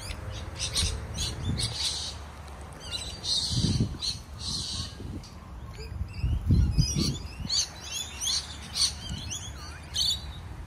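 Small birds chirping repeatedly, with many short, quick notes. Two low, muffled rumbles, about four seconds in and again near seven seconds, are the loudest sounds.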